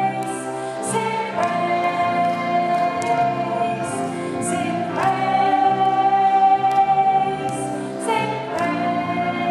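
Live worship-band music: a woman singing long held notes, changing pitch every few seconds, over keyboard, bass guitar and electric guitar.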